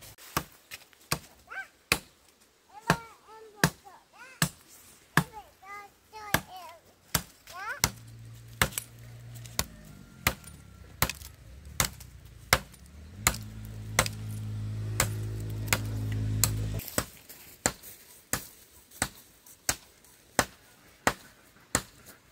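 Steady chopping, a blade striking about twice a second throughout. Birds chirp in the first several seconds. From about eight seconds in, an engine hums, growing louder, then cuts off suddenly near seventeen seconds.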